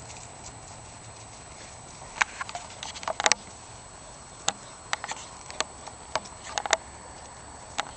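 Irregular sharp taps and clicks, scattered unevenly from about two seconds in to near the end, from two eight-week-old pit bull puppies running and scrambling about.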